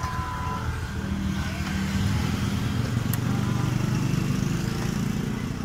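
Honda Vario 110 scooter's single-cylinder engine idling steadily, getting a little louder about two seconds in.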